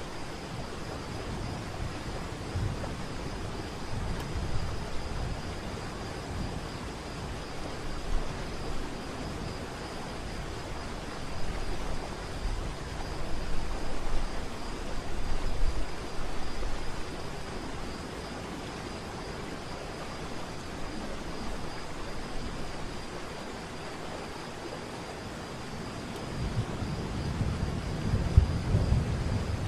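Waterfall water rushing in a steady, even noise, with gusts of wind buffeting the microphone in low rumbles midway and again near the end.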